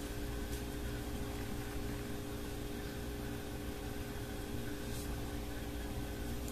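Steady low hum with hiss: room tone from an appliance or fan running, with a faint tick about half a second in and another about five seconds in.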